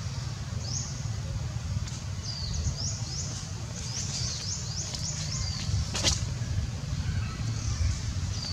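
Forest outdoor ambience: a steady low rumble under a run of quick, high sweeping chirps in the middle, with one sharp click about six seconds in.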